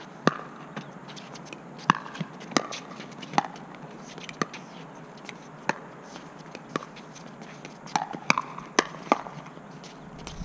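Pickleball paddles hitting the plastic ball in a doubles rally: a string of sharp pops at uneven gaps, coming fast in a quick exchange of volleys near the end.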